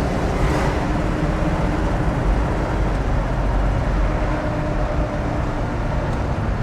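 428 Cobra Jet V8 of a 1969 Ford Mustang Shelby GT500 running steadily under light throttle while driving, with tyre and road noise, heard from inside the car.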